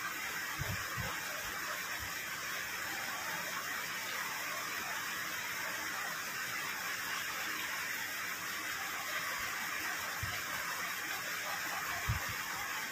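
A steady rushing hiss, with a few soft low thumps near the start and again near the end.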